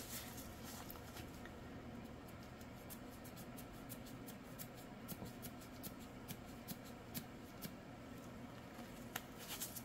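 Faint, scattered clicks and light taps from handling a small jar of mica powder while it is opened and tapped over a cup of resin, over a low steady hum.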